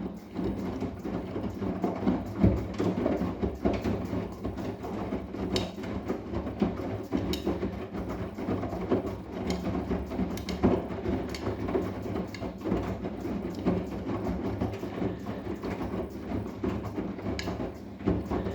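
Arçelik 10121 washing machine running a wash, its drum turning the laundry and water with a steady rumble and many small clicks and knocks.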